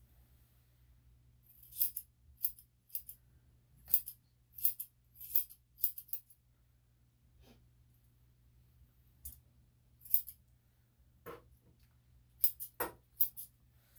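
Grooming scissors snipping a Shih-Tzu's coat in short, crisp cuts: a quick run of about ten snips, a pause, then scattered snips and a small cluster near the end.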